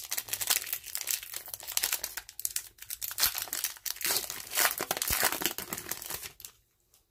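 Foil wrapper of a Pokémon trading-card booster pack being torn open and crinkled by hand, in irregular crackling bursts as the cards are pulled out; it stops shortly before the end.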